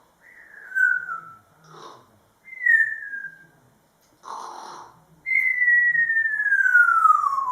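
African grey parrot whistling three falling notes: two short ones, then a long whistle that slides steadily down in pitch. Short breathy hisses come between the whistles.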